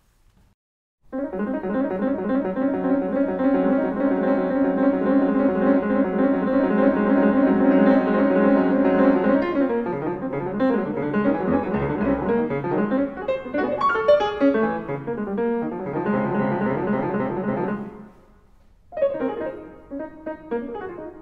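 Yamaha CFX concert grand piano playing, recorded through an Earthworks QTC30 microphone. It starts about a second in with full sustained chords, and there is a short pause in the playing near the end before it picks up again.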